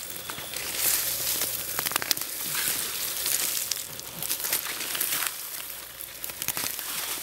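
Dry leaves and brush rustling and crackling, with many scattered sharp snaps and clicks.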